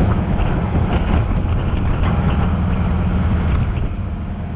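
Tow speedboat's engine running at speed under way, mixed with the rush of its wake and wind; a steady, loud noise heaviest in the low end.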